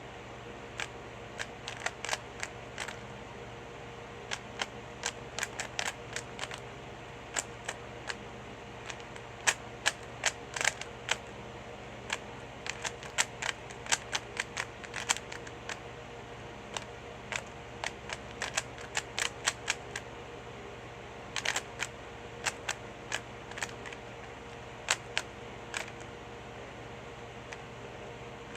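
3x3 Rubik's cube being turned fast by hand, its layers clicking and clacking in quick irregular runs with short pauses between them. A steady low hum sits underneath.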